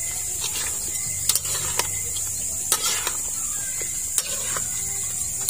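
Metal spatulas stirring meat in a wok, scraping and clinking against the pan with about five sharp clicks at uneven intervals, over a steady hiss.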